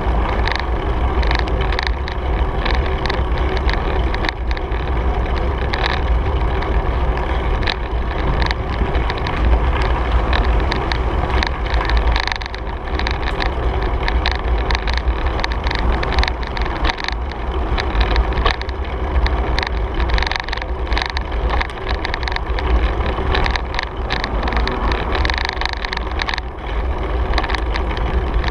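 Bicycle riding on an asphalt trail, heard from a bike-mounted camera: a steady low rumble of wind on the microphone and tyres on the pavement, with frequent small rattles and clicks from bumps in the surface.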